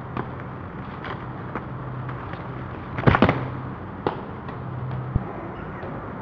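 Running footsteps and knocks as people hurry through plants toward a wooden footbridge, a scatter of short thuds and clicks with the loudest cluster about three seconds in, over a steady low hum.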